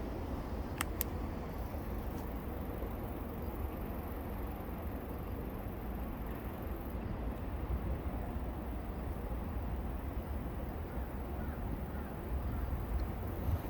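Steady low outdoor rumble, with two quick clicks about a second in.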